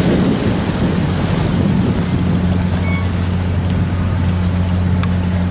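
GVB ferry's engine running at the pier, a steady low hum that grows stronger about two seconds in, with a single short click near the end.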